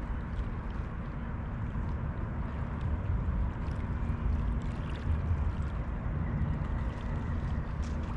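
Wind rumbling on the microphone beside the Danube's moving water, with a faint steady hum underneath.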